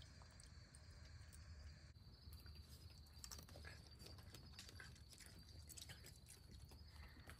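Faint soft clicks and ticks of a raccoon chewing grapes and padding through shallow water in a plastic kiddie pool, scattered from about two seconds in.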